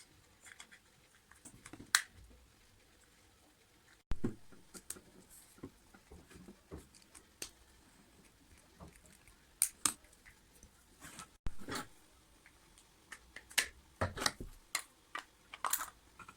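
Scattered light clicks, taps and knocks of small objects being handled, irregular and without any steady motor sound. The sound cuts out abruptly twice.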